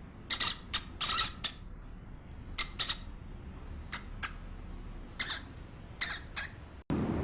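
A series of short, sharp, high-pitched animal calls: about a dozen quick chirps or squeaks in irregular clusters, over a low steady background.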